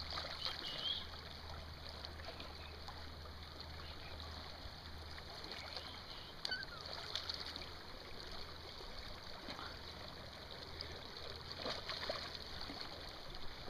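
Steady rush of river current, with a few faint splashes near the end from a hooked salmon thrashing at the surface.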